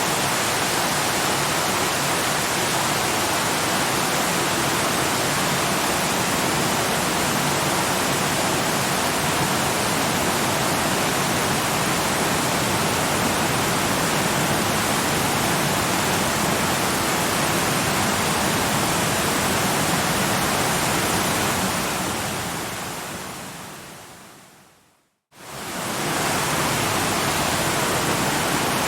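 A waterfall rushing steadily. About three-quarters of the way through it fades out to a moment of silence, then swells back in.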